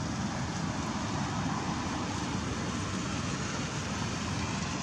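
Steady low rumbling background noise with no distinct events or animal calls.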